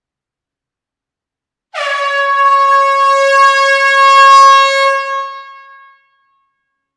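A single loud air-horn blast: it starts sharply about two seconds in as a steady, brassy tone rich in overtones, holds for about three seconds, then fades out with the reverberation of a closed hall.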